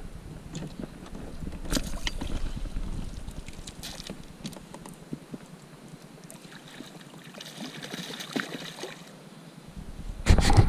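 Water splashing and lapping beside a kayak while a hooked perch is played at the surface, with scattered small clicks and knocks from the rod and gear. A sudden louder rush of noise comes in just before the end.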